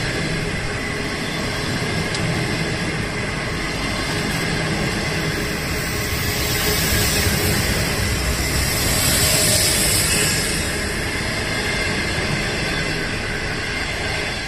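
Green-and-yellow 25G-type passenger coaches rolling past at speed: a steady rumble of wheels on rail, swelling to a louder hiss about two-thirds of the way through as the tail of the train nears.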